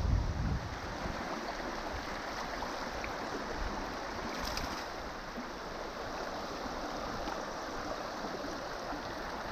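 Shallow river running over stones: a steady rush of flowing water. A low rumble dies away in the first half second.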